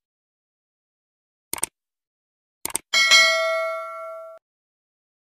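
Subscribe-animation sound effects: two short clicks, then a bell ding that rings for about a second and a half before cutting off.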